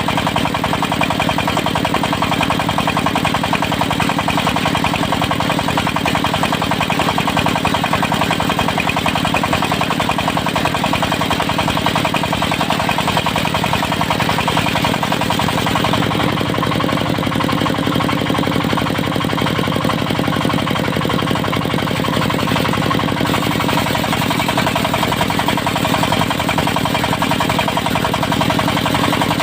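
Engine of a portable circular-saw sawmill running steadily, with a fast even firing pulse. From about halfway through the tone shifts for several seconds, then returns.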